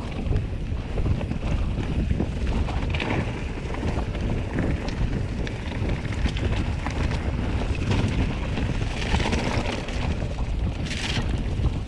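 Wind rushing over the microphone while a mountain bike rattles down a rough trail, with a constant low rumble and many small clicks and knocks from the bike and tyres.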